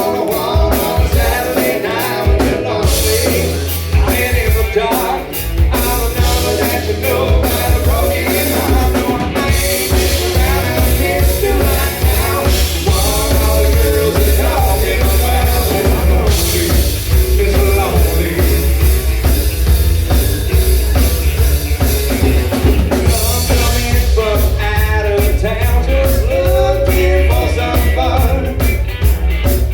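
Rock band playing with drum kit, heavy bass and singing.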